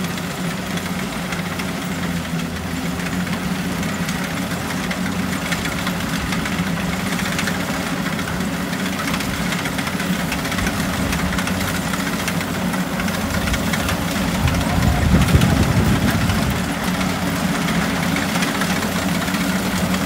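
Kubota DC70 Plus combine harvester's 70 hp engine and threshing machinery running steadily as it drives through the rice crop with its header down. The sound swells louder for a moment about fifteen seconds in.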